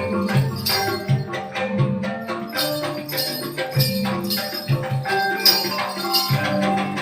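Gamelan music accompanying the Remo dance: low drum strokes over ringing metallophone tones, with constant jingling like small bells.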